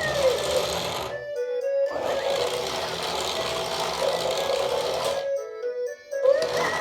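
Small electric drive motor of a remote-control toy car whirring in two runs, stopping for a moment about a second in and again near the end, while the toy plays an electronic music tune.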